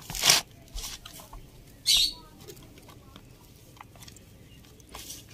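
Hand mixing grated white radish (mooli) with chopped herbs and spices in a plastic bowl: rustling swishes in a few short bursts, the loudest about two seconds in.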